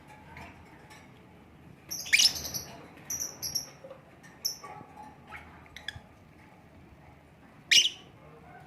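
Lovebirds chirping: short, sharp high-pitched calls, the loudest a rising call about two seconds in and another near the end, with quicker chirps in between.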